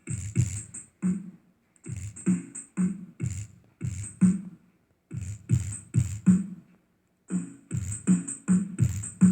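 Beat-driven electronic music played through a speaker's woofer for a bass test: punchy low bass thumps in a steady rhythm with sharp high ticks, dropping out briefly a couple of times.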